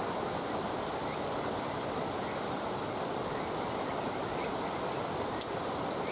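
Wood campfire burning with a steady rushing noise, and one sharp crackle from the burning wood about five seconds in.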